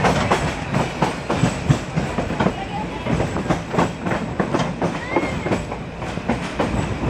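Narrow-gauge railway carriage running along the track, heard from its open side: a steady rumble with irregular clicking and clattering of the wheels on the rails.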